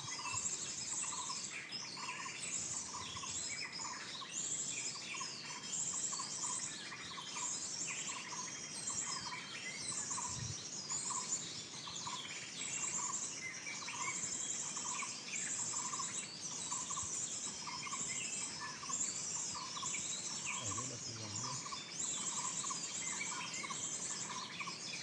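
A bird-call lure recording playing on a loop from a speaker for bird trapping. A short note repeats very evenly a little over once a second, under recurring bursts of rapid high chirping.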